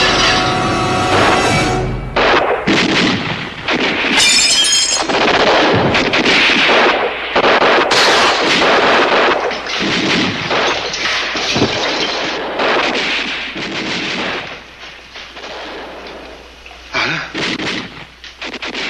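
A dramatic music sting, then war-film gunfire and impacts with glass shattering as a body crashes through a leaded glass window. The firing thins out about three-quarters of the way through.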